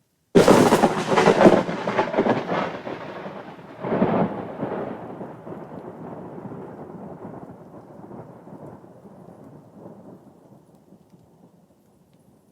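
A thunderclap: a sudden sharp crack about half a second in, a second rolling surge near four seconds, then a long rumble that fades away gradually.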